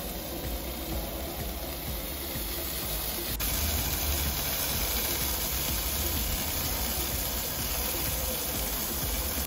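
Filet mignon sizzling in a pan inside a Gozney Roccbox pizza oven, over the oven's flame: a steady hiss with a low rumble. It gets a little louder about three and a half seconds in.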